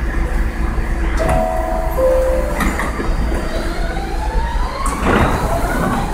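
New York City subway train leaving a station. About a second in, the two-note door chime sounds, a higher note and then a lower one; the doors knock shut; then the traction motors whine steadily upward in pitch as the train pulls away, over a constant low rumble.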